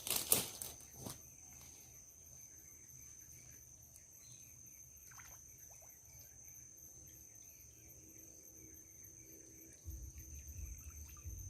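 Insects make a steady high-pitched trill throughout. A brief loud noise comes just after the start, with a few faint knocks in the middle. A low rumble sets in near the end.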